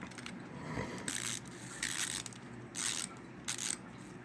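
Wind-up toy seals' clockwork being wound by key, the ratchet clicking in short bursts about once a second.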